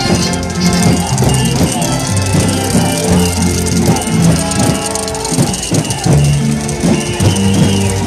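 Music with held bass notes and shaker-type percussion, played through large outdoor loudspeaker towers.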